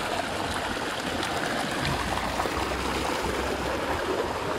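Water gushing steadily into a stone-walled spa pool from an inflow and churning in the pool, a continuous rushing and splashing.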